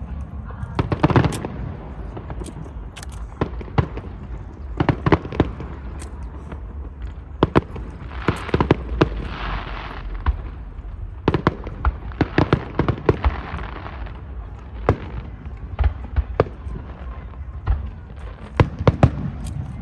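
Fireworks display: aerial shells bursting in a run of sharp bangs, some in quick clusters, with two stretches of hissing noise about a third and two thirds of the way through.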